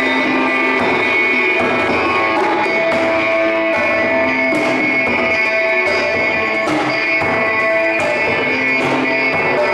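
Live electric guitar playing long held, ringing notes, with hand drums struck now and then underneath.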